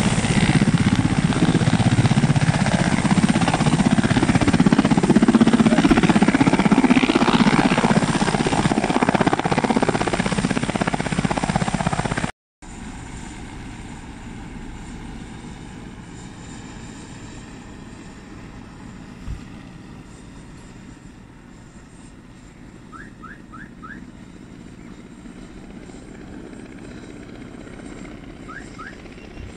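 Helicopter lifting off, its rotor and engine noise loud and rushing. About twelve seconds in, the sound cuts, and the helicopter is then heard far off as a much fainter, steady drone.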